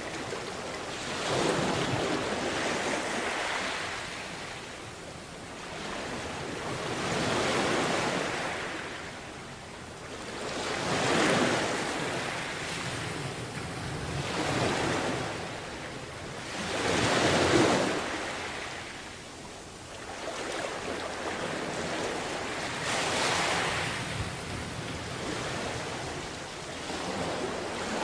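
Sea waves washing onto a beach, each surge swelling and then fading, one every three to six seconds or so.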